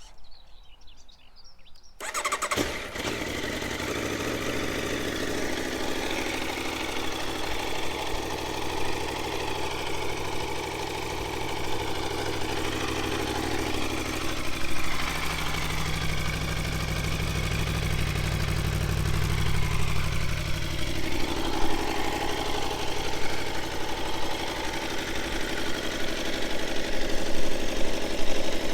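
2021 Aprilia Tuono V4 1100 Factory's V4 engine on its standard exhaust, starting up about two seconds in and then idling steadily, a little louder and more uneven toward the end.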